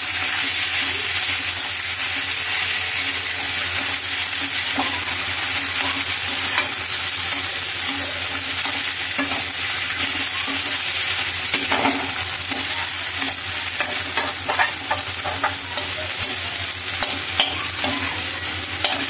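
Mashed potato frying in ghee in a steel kadhai, sizzling steadily while a metal spatula stirs and scrapes it, with scattered clicks of the spatula against the pan. The potato is being roasted for aloo halwa.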